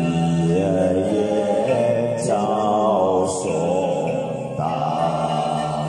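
A man sings a Buddhist gatha in Chinese, unaccompanied, in a slow chant-like style into a handheld microphone, drawing out long notes that waver and glide in pitch.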